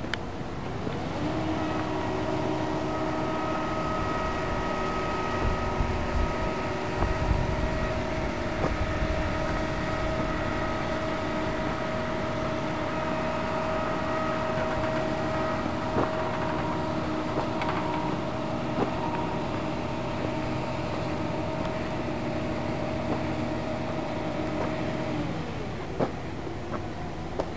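Heavy machinery running with a steady droning whine that winds up about a second in and winds down near the end, with a few light knocks.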